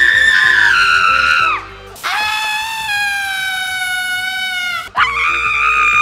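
A woman screaming in long, high, held shrieks: the first tails off about a second and a half in, a second, steadier one runs from about two seconds to nearly five, and a third starts near the end. Light background music plays underneath.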